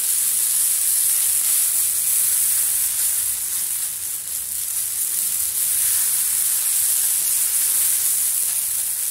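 Pearl millet adai batter sizzling in oil on a hot iron dosa tawa while a steel ladle spreads it thin: a steady hiss.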